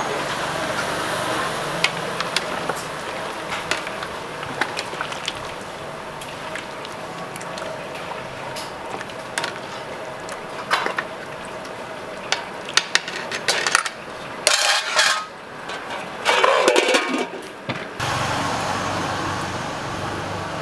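Scattered clinks and knocks of a metal ladle and utensils against a large aluminium stock pot, over a steady kitchen hum. A louder run of clattering comes about three-quarters of the way through.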